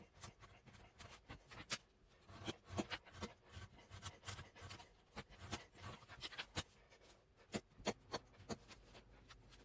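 Utility knife blade drawn through thin cardboard in many short, uneven scraping strokes, faint.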